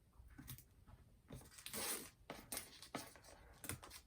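Box packaging being handled: a series of short rustles and scrapes, the longest and loudest about two seconds in.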